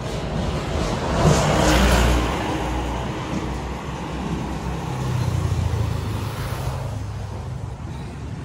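Street traffic: a motor vehicle passes close by, its engine and tyre noise swelling to a peak about a second or two in and fading. A lower engine rumble from more traffic rises again later.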